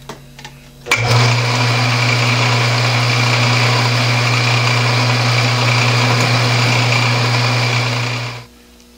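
Metal lathe running under power, its three-jaw chuck spinning with a nut held in it: a steady machine hum with a whirring noise above it. It starts abruptly about a second in and stops shortly before the end.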